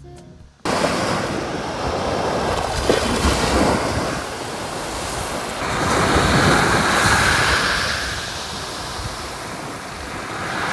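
Small waves breaking and washing up a sandy beach, a steady surging hiss that swells and ebbs, with wind buffeting the microphone. It starts just under a second in.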